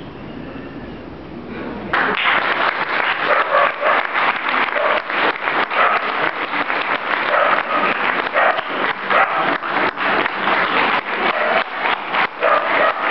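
Audience applauding: the clapping starts suddenly about two seconds in, after a low murmur of room noise, and keeps going steadily.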